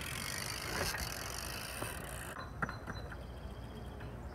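Steady outdoor background hiss with a few faint light clicks, about a second in and again near the three-quarter mark.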